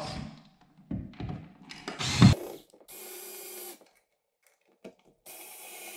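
Ryobi cordless screwdriver driving the receptacle's mounting screws into a recessed outlet box: a few knocks from handling first, then a steady motor run of about a second, and another run starting near the end.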